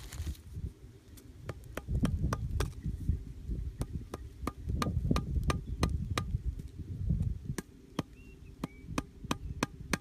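Wooden stake being driven into the ground with a string of sharp knocks, roughly two a second, and dull thuds underneath.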